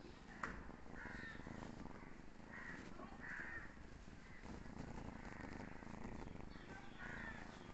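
A sleeping kitten snoring softly, with several short, higher calls sounding in the background.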